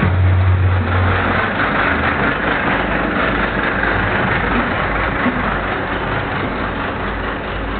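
Aerial-ladder fire engine's diesel engine running steadily close by, a deep hum that is strongest in the first second or so.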